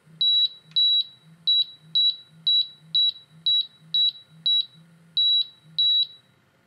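High-pitched audible alarm of a GasAlertClip Extreme gas detector beeping rapidly, about two beeps a second for some six seconds, set off by test gas during a bump check in its docking station.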